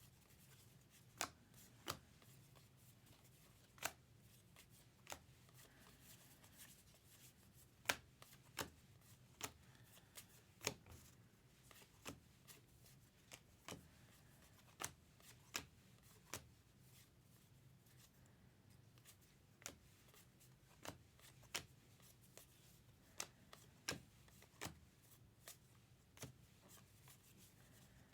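Trading cards being flipped through by hand, each card giving a short, sharp click or snap at irregular intervals of about a second.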